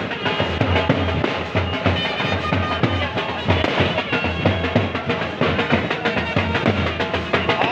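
Loud music with a heavy, steady drum beat.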